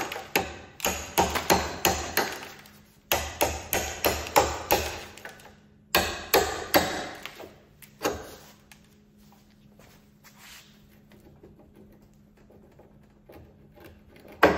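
Hand hammer striking a steel punch bit against a leaf-spring mounting bolt to drive it out of its worn rubber bushing. Sharp metal-on-metal blows come in quick runs of about four a second over the first five seconds, then a few single blows, and stop about eight seconds in.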